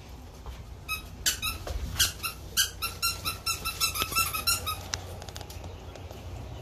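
A squeaky dog toy squeaked over and over in quick short squeaks for about four seconds, fastest near the middle, then stops. A few sharp taps and knocks come in among the first squeaks.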